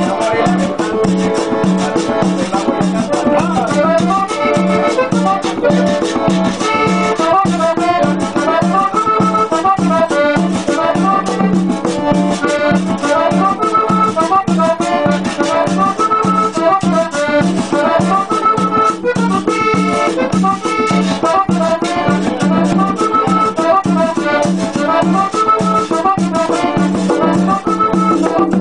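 Colombian cumbia played live on button accordions over a conga drum struck by hand in a steady rhythm.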